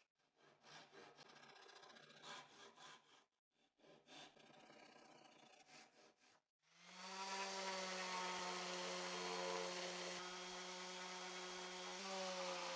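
Faint rubbing and tapping of wood as glued hardwood strips are fitted into the slots cut at the box corners. About seven seconds in, a louder steady hum starts and holds, stepping slightly in pitch near the end.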